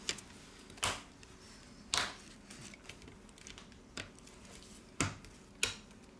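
Plastic inner frame of an LG K30 smartphone being pressed down around the battery, its clips snapping into place with about six sharp clicks at uneven intervals.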